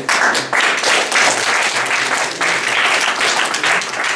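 Audience applauding: dense, loud clapping from a seated crowd that breaks out suddenly.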